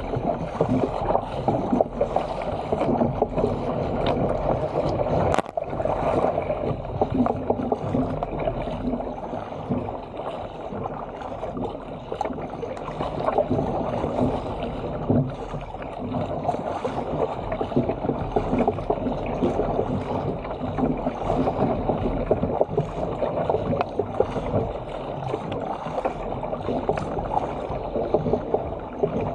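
Water rushing and splashing along the hull of a Stealth 457 fishing ski as it is paddled at speed through open-sea chop, with the paddle blades splashing in and out on each stroke. A single sharp knock about five seconds in.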